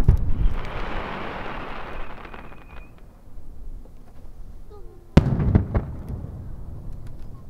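Aerial firework shells bursting: a sharp bang at the start, followed by a couple of seconds of hissing crackle, then two more bangs close together about five seconds in, each trailing off in a low rumble.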